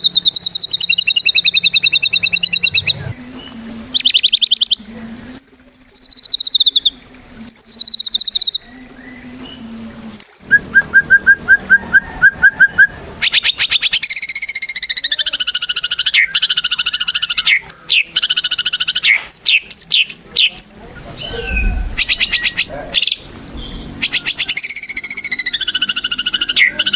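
White-rumped shama singing loudly in full song: a long run of varied phrases mixing fast buzzy trills, whistles gliding up and down, and a string of about a dozen quick sharp notes in the middle.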